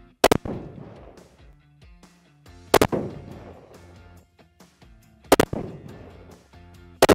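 Four rifle shots from a Christensen bolt-action precision hunting rifle firing 6.5 mm 143-grain ELD-X rounds, about two and a half seconds apart, each a sharp crack followed by a fading echo.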